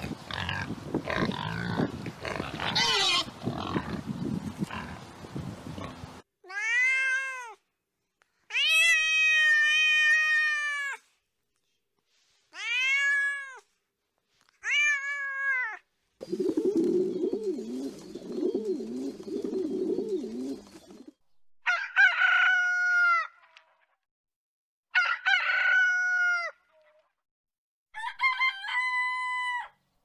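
A pig grunting and squealing in a dense, noisy jumble for about six seconds. Then a domestic cat meows four times, each a clean, arched call. A low rhythmic rumble lasts about five seconds, and near the end come three drawn-out, steady-pitched calls.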